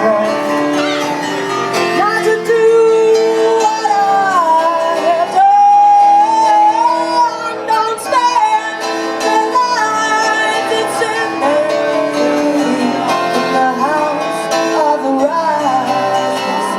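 A song performed with a singing voice over guitar accompaniment, the melody gliding and held over sustained notes.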